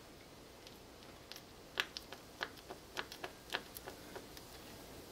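Light, irregular clicks and taps of a freshly greased front brake caliper slider pin being worked in and out of its bore, starting about a second in.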